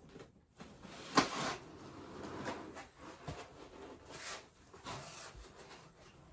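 Handling noises from unpacking a 3D printer's parts: rustling and scraping of packaging, with a sharp knock about a second in and a few lighter clicks.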